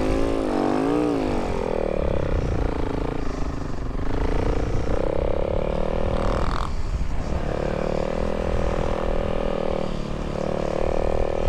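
Snow bike's dirt-bike engine running under throttle. The revs rise and fall in the first couple of seconds, then run steadier, with a brief drop near the end.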